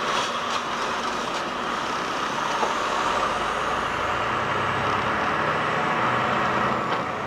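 Semi-truck's diesel engine pulling away from a stop, heard from inside the cab as a steady hum over road and cab noise, with the engine note growing stronger about halfway through as the truck gathers speed.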